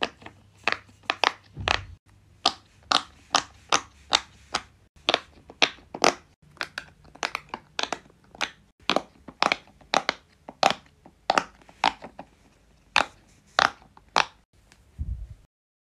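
Silicone pop-it fidget toys having their bubbles pressed in one at a time by fingertip, each press giving a sharp pop. The pops come in a steady run of about two a second and stop shortly before the end.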